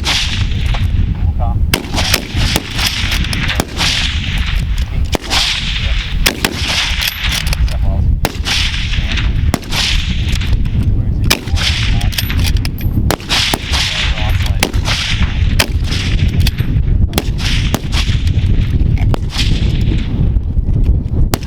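Rifle gunfire at a shooting range: many sharp shots at uneven intervals, some less than a second apart, over a steady low rumble.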